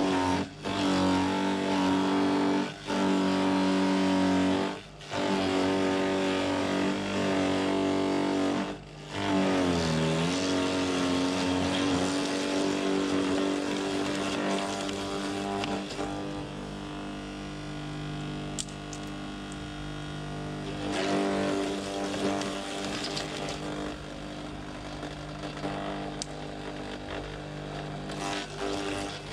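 Electric garden shredder's motor running steadily while branches are forced into it. The pitch dips and recovers about ten seconds in as the motor bogs under the load of the wood, and the sound breaks off briefly several times in the first nine seconds.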